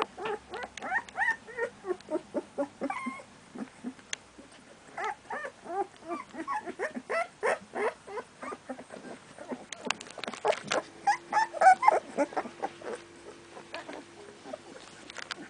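A litter of about three-week-old American Staffordshire Terrier puppies whimpering and squeaking: rapid strings of short high calls in three bouts with brief pauses, thinning out near the end.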